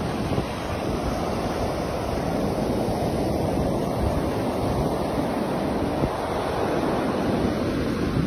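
Ocean surf washing up the beach: a continuous rushing wash of breaking waves and foam that swells in the middle. Wind buffets the phone microphone with a low rumble underneath.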